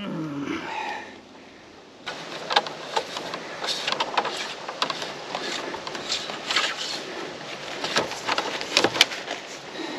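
Irregular clicks and knocks from handling plastic electrical conduit and cable against a post, loudest near the end.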